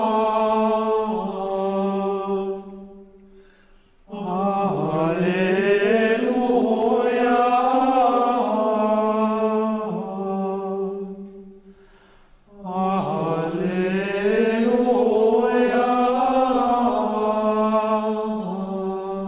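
A small choir of Trappist monks singing Gregorian chant in unison, with male voices, in three long phrases separated by two short breathing pauses.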